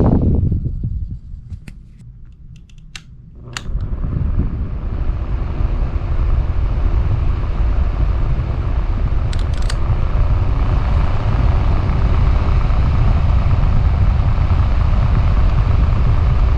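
An electric fan blowing air onto a GoPro Hero 8's built-in microphone, heard as a steady low wind rumble. It dies down about a second in while a few sharp clicks sound, then comes back up after about three and a half seconds and holds steady.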